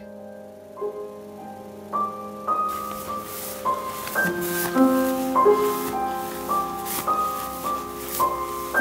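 Piano music: a slow melody of single held notes begins about a second in, the notes coming more often, a few per second, as it goes on.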